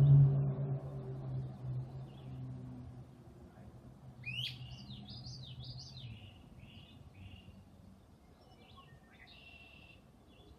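A small bird chirping: a quick run of rising and falling chirps about four seconds in, then a few short calls near the end. Before that, a low hum with overtones dies away over the first few seconds.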